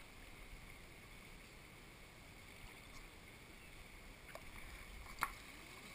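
Faint lapping and sloshing of pool water close to the camera, with one sharp slap about five seconds in and a fainter one just before it.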